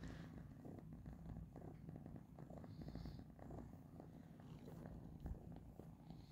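Domestic cat purring steadily, a quiet low continuous rumble.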